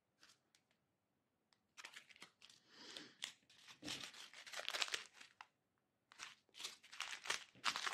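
Small clear plastic bags of diamond painting drills crinkling and rustling as they are handled, starting after a quiet second or two and coming in two spells with a short break between.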